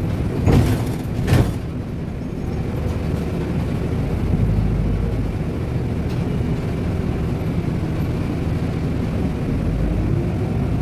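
Steady low engine and road rumble of a moving vehicle, heard from inside. Near the start there are two short, louder bursts about a second apart.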